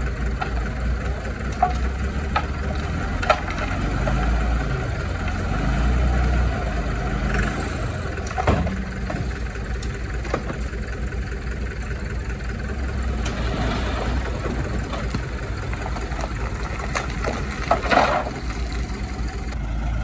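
Heavy diesel construction machinery running steadily, its engine swelling a few seconds in, with occasional sharp metallic clanks and a louder cluster of clanks near the end.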